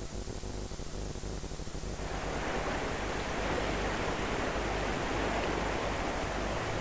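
Rushing water of a fast mountain torrent, a steady noise that comes in about two seconds in over a low hum.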